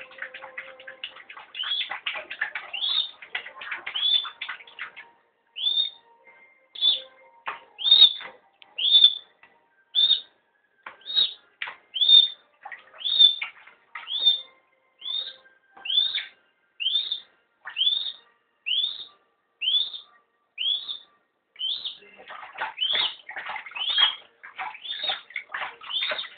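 A bird calling: short chirps that sweep upward, repeated about once a second, with busier stretches of rapid overlapping calls near the start and again near the end.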